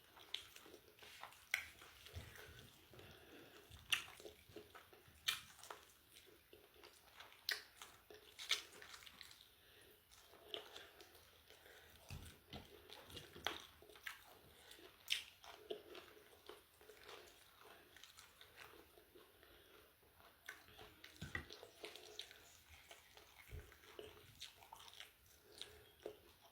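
Close, quiet chewing and biting of crunchy fried chicken chicharrón, with sharp crunches at irregular intervals of a second or so.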